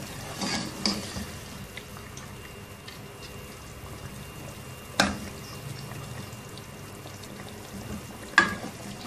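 Mutton stew simmering in a pot with a steady bubbling hiss while it is stirred with a ladle, the ladle knocking against the pot a few times, the loudest near the end.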